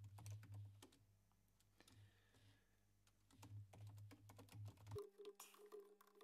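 Faint computer keyboard typing: scattered keystrokes, with a lull of about two seconds in the middle before the typing picks up again.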